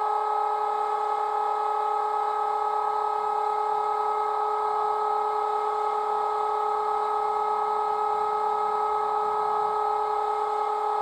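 Class 30 locomotive DCC sound file of a Mirrlees MB275T diesel engine running at a steady high note: a constant whine made of several pitched tones.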